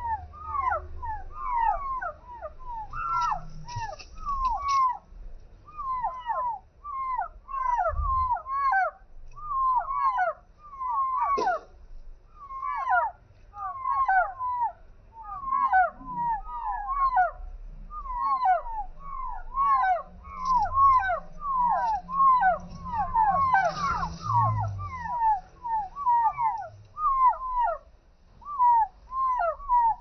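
Young chicken chicks peeping without a break: a fast run of short, high, downward-curving peeps, several a second and overlapping from more than one chick.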